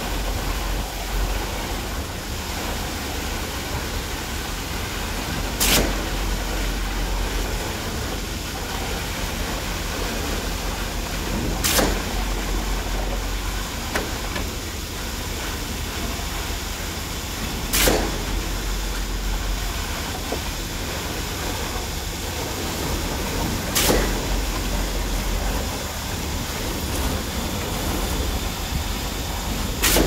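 Concrete pump running with a steady low engine drone, and a sharp knock about every six seconds as the pump changes stroke.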